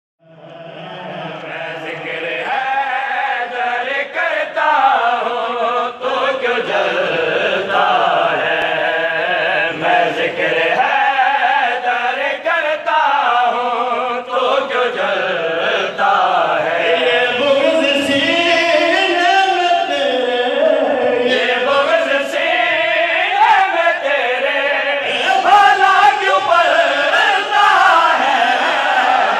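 A group of men chanting a Shia devotional song in praise of Ali (Haidar), with one lead voice singing into a microphone and the others joining in. The sound fades in over the first second or two.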